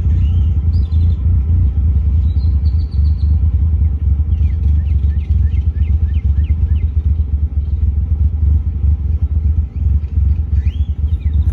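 Car engine idling roughly, its loudness dipping irregularly: the uneven idle of a misfire.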